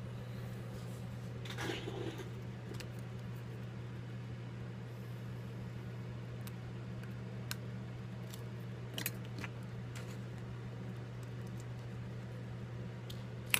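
Light clicks and scrapes from handling an iPhone 5S as its display assembly is seated and closed onto the frame: a small cluster about two seconds in, a couple more past the middle, and a sharp click at the end. A steady low hum runs underneath.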